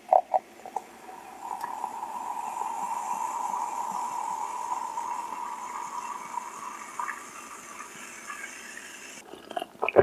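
Coca-Cola poured from a plastic bottle into a glass mug: a steady pour with the carbonation fizzing, its pitch rising slightly as the mug fills, after a few light clicks at the start. The pour stops about nine seconds in.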